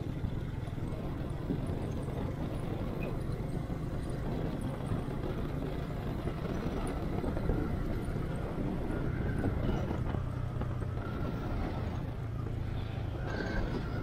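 Motorcycle riding at a steady cruise: engine running with wind and road noise, heard through a microphone inside the rider's helmet.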